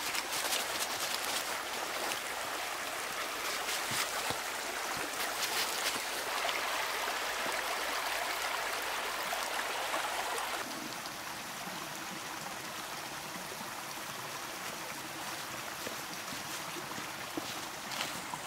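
Small woodland creek running over rocks, a steady rushing and trickling. Scattered sharp crackles sit over it in the first few seconds. About ten seconds in the flow drops to a slightly quieter, softer sound.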